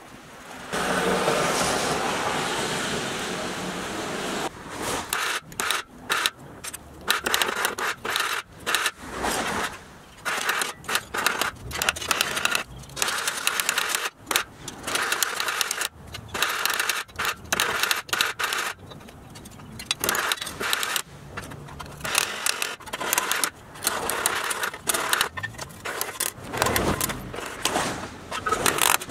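Small hammer tapping quickly and irregularly on a Tonka toy truck's thin pressed-steel cab held against a steel bench vise, beating the metal back into shape. It opens with about three seconds of steady scratchy noise before the hammering starts.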